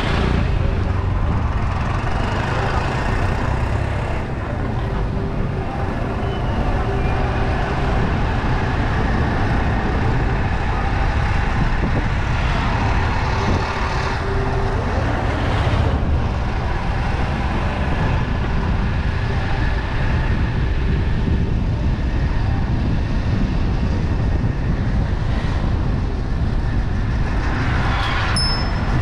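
Steady low rumble of a car driving along a road: tyre, engine and wind noise at a constant level.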